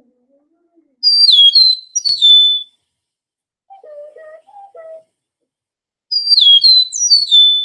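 Recorded eastern meadowlark song: two phrases of clear, slurred whistles, each sliding downward in pitch, the first about a second in and the second about six seconds in.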